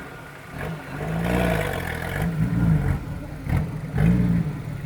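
Off-road vehicle engine revving up and down several times, the pitch rising and falling in repeated swells, starting about half a second in.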